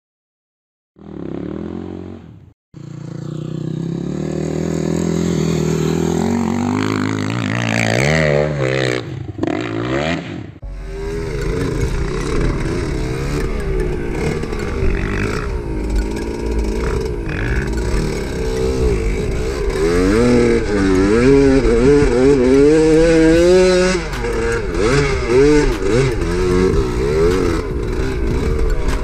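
Two-stroke KTM SX 125 dirt bike engine revving up and down repeatedly while being ridden, with a low rumble of wind on the microphone from about ten seconds in. Before that, a loud pitched sound rises and falls, broken by a short gap.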